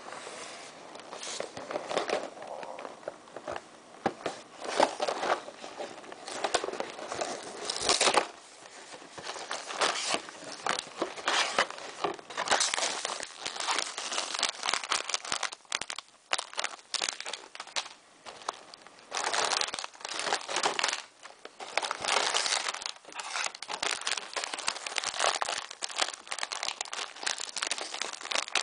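Krave cereal packaging being handled and opened: plastic and packaging crinkling and crackling in irregular bursts.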